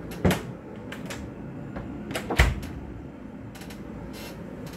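Wooden cabinet door being handled: two sharp knocks about two seconds apart, with lighter clicks between and after.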